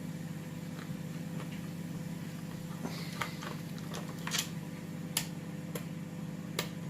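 A steady low hum with a handful of scattered light clicks and taps, most of them in the second half.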